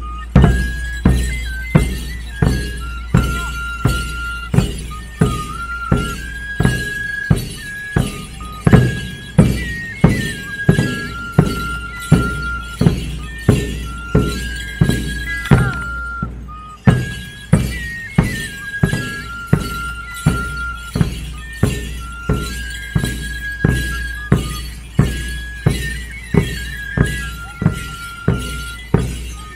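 Andean dance music: large double-headed drums beaten in a steady beat about twice a second, under a high flute melody of long held notes. The flute drops out for a moment about halfway through while the drums keep going.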